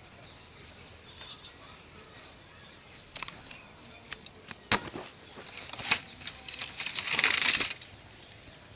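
Faint outdoor background, then a few sharp clicks and several seconds of rustling, scuffing handling noise as the phone is swung about and rubbed against clothing.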